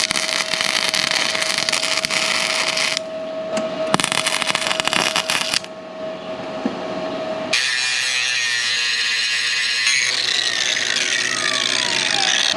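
Two bursts of welding crackle on the steel hitch, then a power tool, likely the angle grinder, running and winding down with a falling whine near the end.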